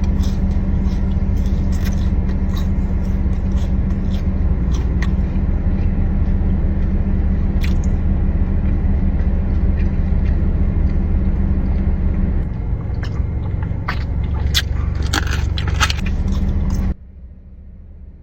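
Steady low hum of a car engine idling, with a few sharp clicks and bites of eating near the end; the sound cuts off suddenly shortly before the end.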